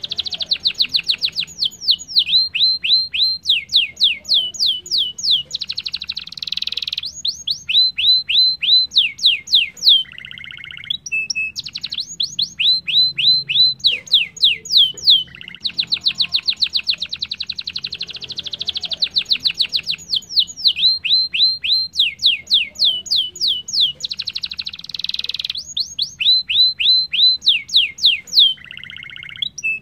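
Domestic canary singing a long, rapid song of fast down-sweeping trills and rolls, broken twice by a short lower buzzy note. The same sequence of phrases comes round again about halfway through.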